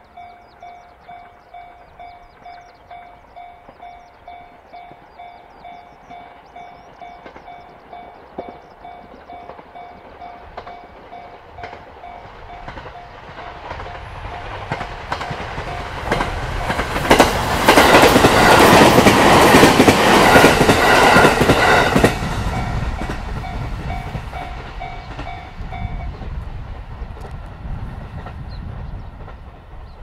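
Japanese level-crossing warning bell ringing about twice a second while a JR East electric commuter train approaches, passes close by with a loud rush and the clickety-clack of its wheels over the rail joints, loudest about 17 to 22 seconds in, then fades away. The bell stops a few seconds before the end.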